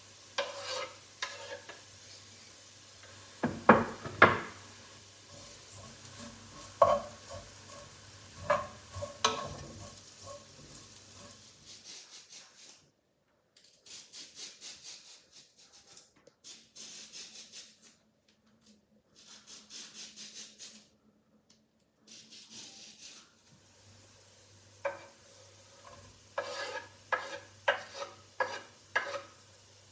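Vegetables frying in oil in a frying pan and being stirred: sizzling, with sharp scrapes and knocks of the spatula against the pan. A low hum runs under the first and last parts, and the middle comes in short choppy bursts with silent gaps.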